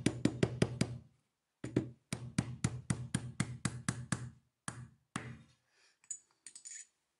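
Nylon-faced hammer tapping quickly on the end of a bicycle rear hub axle to drive the old bearing off it: two runs of sharp taps at about five a second, then two single taps, and a few faint light clinks near the end.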